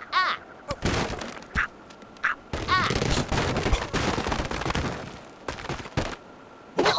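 A quick string of short, unrelated comic sound effects: brief squeaky chirps that rise and fall in pitch, mixed with sharp noisy bursts and a longer stretch of crackling noise in the middle.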